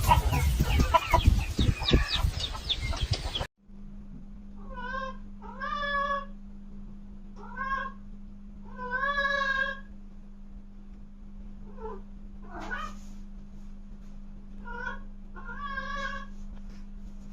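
A loud, dense noise cuts off abruptly. Then a cat meows again and again, about eight meows, a few of them drawn out, over a steady low hum.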